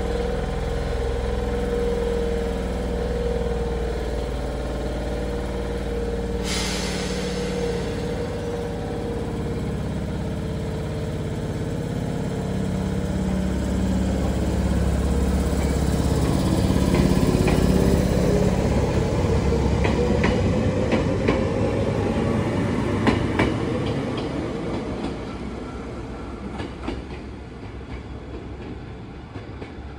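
Chichibu Railway 7800 series electric train departing: a steady hum while it stands, a short burst of air hiss about six seconds in, then a whine rising in pitch as it accelerates, with wheels clacking over rail joints. The sound fades as the train pulls away.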